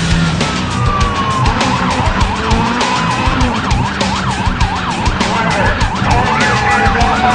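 Police car siren: a slow wail that falls, switches about a second and a half in to a fast up-and-down yelp of about two cycles a second, and goes back to a rising wail near the end. Music with a clicking percussive beat plays underneath.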